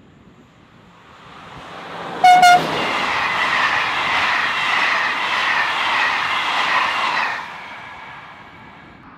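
An electric locomotive hauling Corail passenger coaches passes on the rails: two quick horn toots about two seconds in as the locomotive comes by, then several seconds of loud wheel and coach rolling noise that drops off sharply near the end as the last coach goes by.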